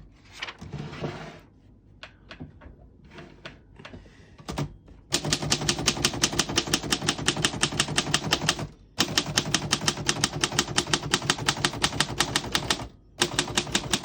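1937 Underwood Universal manual typewriter: a few scattered light clicks of the margin stops and carriage, then three long runs of fast, even key strikes, about ten a second, with short pauses between, as the carriage steps along toward the end of the margin.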